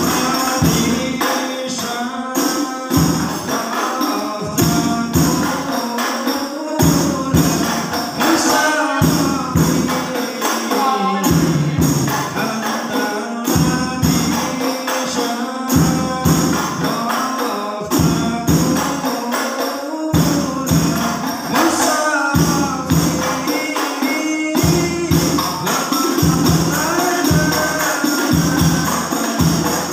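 Hadroh ensemble playing: rebana frame drums and a bass drum beat a steady, driving rhythm while men sing along into a microphone.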